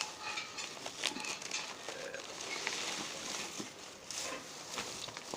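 Packaging being handled: crinkling with irregular light clicks and knocks, the sharpest about a second in.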